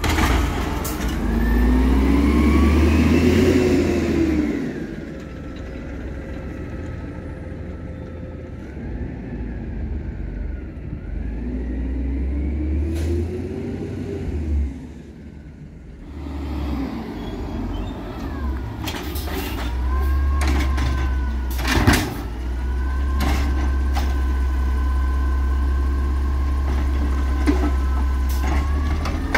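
Peterbilt 320 natural-gas refuse trucks with Bridgeport Ranger automated side-loader arms working the carts. The engine revs up and falls back twice as it drives the arm's hydraulic pump. Later a steady hydraulic whine holds through the lift, with a sharp knock about two-thirds of the way through as the cart is dumped.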